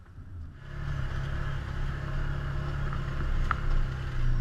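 A Can-Am Commander side-by-side's engine running steadily while driving, heard from the driver's seat in the cab. It comes in about half a second in, after a brief quieter moment.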